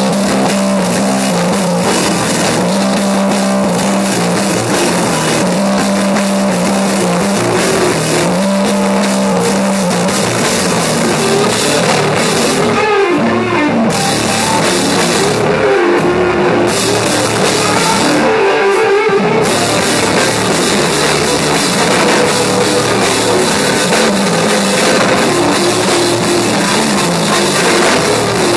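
Stoner doom band playing live: electric guitar, bass and drum kit, loud and dense, with the high end dropping away briefly three times around the middle.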